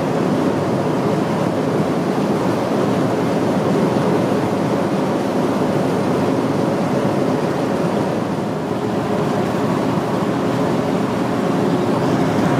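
A ferry's engines and churning propeller wash running steadily as it manoeuvres in to berth, heard as an even rushing noise. A faint steady hum joins about two-thirds of the way through.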